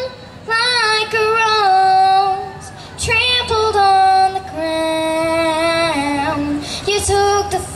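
A young girl singing a slow gospel song solo into a handheld microphone, holding long notes that glide between pitches, with short breaths between phrases.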